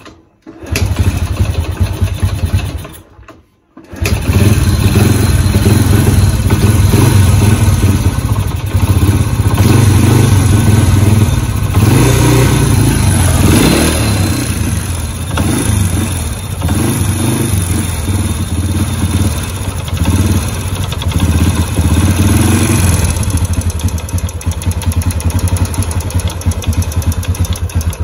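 Honda EX5 single-cylinder four-stroke engine, fitted with a 53 bore kit, is started. It dies after about three seconds, is restarted and runs with the revs rising and falling, then is switched off at the end. It has a rattling 'ketak-ketak-ketak' top-end noise that the mechanic likens to running with no oil, the sign of a worn engine due for overhaul.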